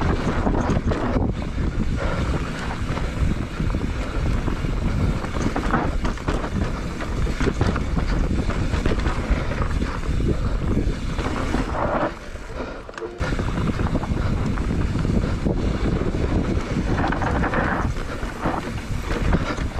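Wind buffeting the microphone of a bike-mounted action camera, with tyre and bike noise from a mountain bike riding fast down a dirt trail. It dips briefly about twelve seconds in.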